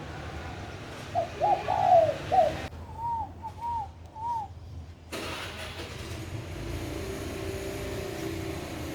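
Bird calls: a quick run of loud, curving whistled notes about a second in, then three single arched whistles, over a steady low rumble.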